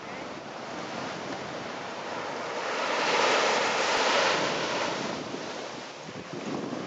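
Small waves breaking on a sandy shore, one surge swelling to its loudest a few seconds in and then washing back, with wind on the microphone.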